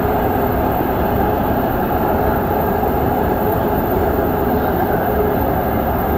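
Dubai Metro train heard from inside the carriage while running between stations: a steady rumble of wheels on rail and traction noise, with no braking or announcements.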